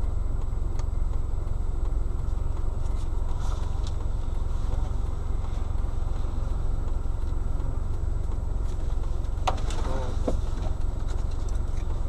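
Stationary car's engine idling, a steady low hum heard inside the cabin, with two sharp clicks about nine and a half and ten seconds in.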